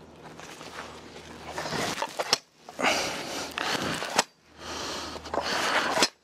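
Slide-hammer wedge log splitter being worked: the weight scrapes along the metal shaft and slams down on the wedge three times, about two seconds apart, each a sharp knock, driving the wedge into a log.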